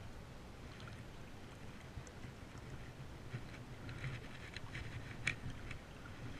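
Faint, steady low rumble of outdoor background noise with scattered light clicks and rustles, the most distinct click about five seconds in.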